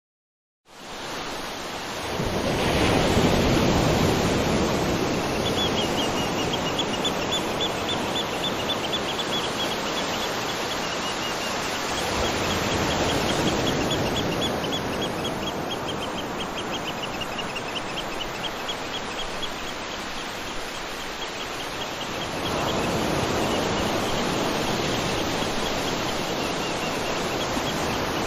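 Ocean surf on a beach: a steady wash of waves, swelling as a wave breaks roughly every ten seconds. A faint high-pitched chirping, repeating rapidly, runs through most of it.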